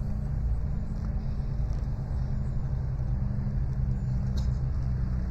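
An engine running steadily, a low even rumble that holds the same pitch throughout.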